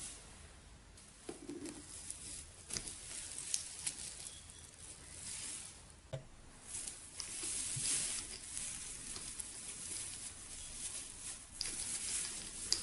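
Plastic needles of an artificial Christmas tree rustling in irregular swells as hands spread and fluff its branches, with scattered small clicks.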